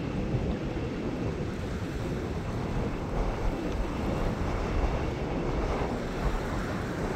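Small waves lapping and washing against a rocky reef shelf, with wind buffeting the microphone in a steady, gusty low rumble.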